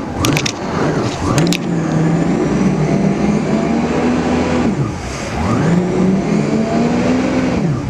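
Personal watercraft engine revved hard twice: the pitch climbs, holds for a few seconds, falls back, then climbs and holds again. The rider is trying to burn off weeds clogging the jet pump intake.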